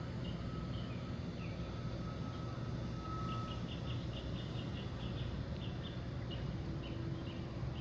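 Outdoor ambience: a steady low rumble with short, high chirping calls, a quick run of them about three seconds in.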